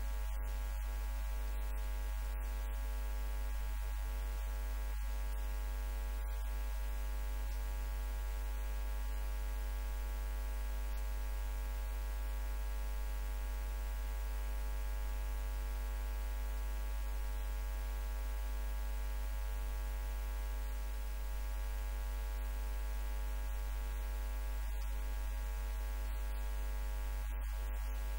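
Steady electrical mains hum with a stack of evenly spaced overtones over a faint hiss; no voices come through it.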